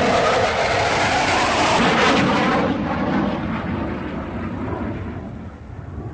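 A vehicle passing by: a loud rushing noise, loudest in the first couple of seconds, that falls slightly in pitch and fades away.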